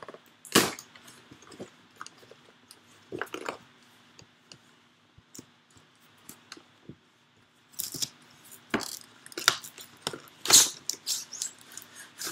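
A cardboard model-horse box with a plastic window being handled and pulled open: scattered scrapes, rustles and knocks. There is one sharp knock about half a second in, and a busy flurry of them later on.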